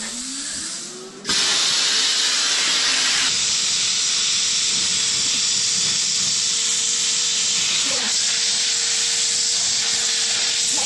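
Plasma cutter cutting steel: a short rising hum, then about a second in the arc catches with a sudden, loud, steady hiss that carries on with a faint steady tone under it.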